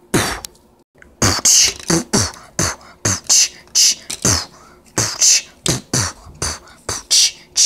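A person beatboxing a steady beat with the mouth, alternating low kick-drum thumps and hissing hi-hat "ts" sounds, about two to three strokes a second. The beat starts about a second in.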